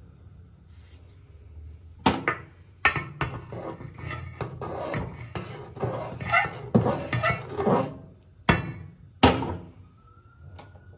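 A steel spoon stirring boiling milk in a metal cooking pot. It clinks and knocks against the pot's sides and rim in a quick irregular run for several seconds. Two louder knocks come near the end.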